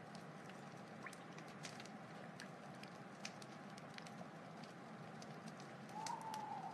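Wood fire crackling: irregular sharp pops and snaps over a steady soft hiss. About six seconds in, a thin whistling tone grows louder.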